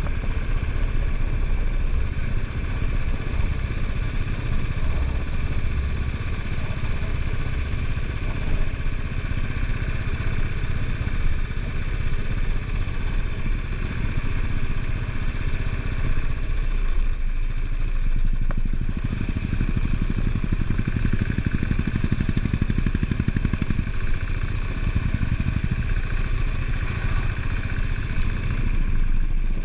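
Royal Enfield Bullet 500's single-cylinder engine running steadily while the motorcycle is ridden along, easing briefly a little past halfway.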